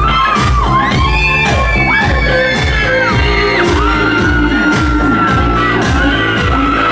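Live amplified pop-rock band music: a steady drum beat of about two strokes a second with bass, under a high sung vocal line that slides between held notes.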